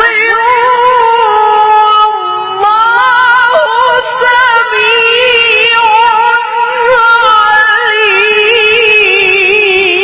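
A sheikh's high voice chanting a long, melismatic Arabic recitation, holding wavering notes for many seconds with barely a break for breath.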